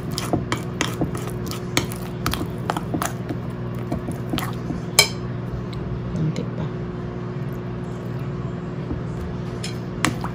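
A metal fork stirring and beating a runny batter in a glass bowl, clinking against the glass in irregular taps, with the sharpest clink about halfway through and fewer taps after it. A steady low hum runs underneath.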